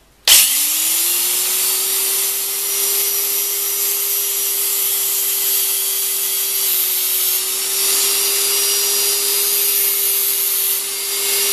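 Electric angle grinder starting about a third of a second in, spinning up to a steady whine, its disc grinding the steel tip of a screwdriver shaft flat with a continuous hiss.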